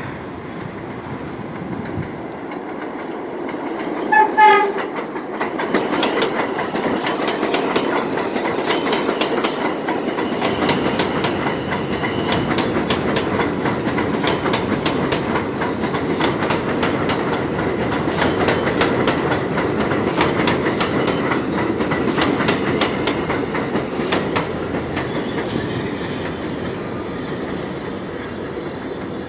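New York City subway train pulling into an elevated station: one short horn blast about four seconds in, then a steady rumble with wheels clacking over rail joints as the cars roll past, easing off near the end as the train slows to a stop.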